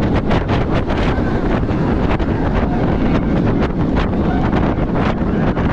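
Wind rushing and buffeting the microphone on a moving roller coaster, over a steady rumble with a quick rattle of the train's wheels on the steel track of Apollo's Chariot, a Bolliger & Mabillard hyper coaster.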